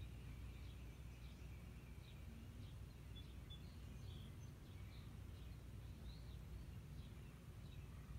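Faint, scattered chirps and short calls of distant birds over a steady low background rumble.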